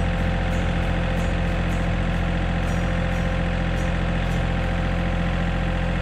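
An engine running steadily at idle, a constant low hum with no change in speed.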